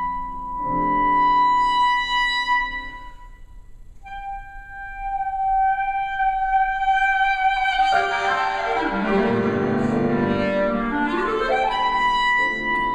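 Clarinet and piano playing contemporary classical music. The clarinet holds long, high sustained notes over piano chords, and about eight seconds in the piano breaks into a dense flurry of runs before the clarinet's high note returns near the end.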